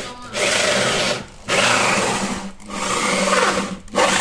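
Electric drill boring a hole through a wall for an air-conditioner pipe, running in stretches of about a second with brief pauses between them, its motor humming steadily under the grinding noise.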